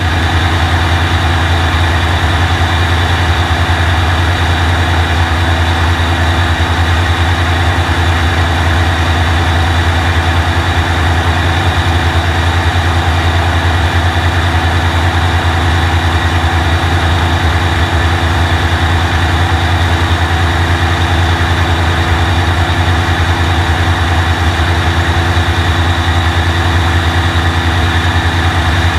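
Rolls-Royce Merlin V-12 engine of a modified P-51 Mustang air racer running steadily in flight, heard from an onboard camera on the tail.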